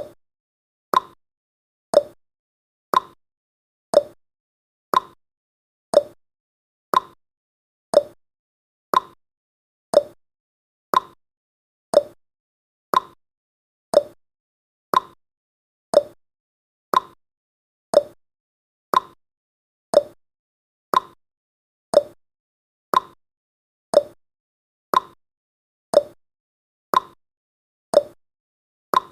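Countdown timer's clock-tick sound effect: one sharp tick each second, alternating between a higher tick and a lower tock.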